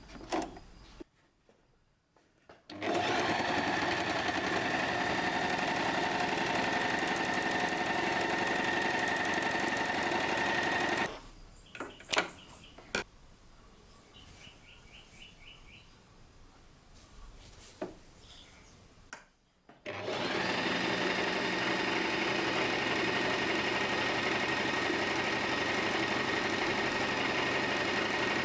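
Electric sewing machine stitching at a steady speed in two long runs. Between them there is a pause of several seconds with a few sharp clicks and light handling sounds.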